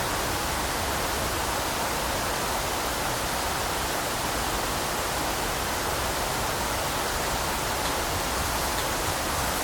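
Steady, even hiss of a bush field recording that has been made 400% louder, with no distinct calls, knocks or other events standing out.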